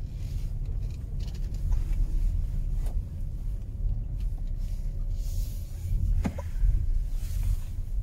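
Low, steady rumble of a car driving slowly, heard from inside the cabin.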